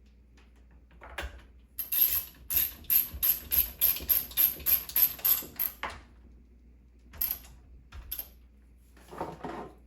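A small mechanism ratcheting in a quick run of about a dozen evenly spaced strokes, roughly three a second, followed by a few separate strokes near the end.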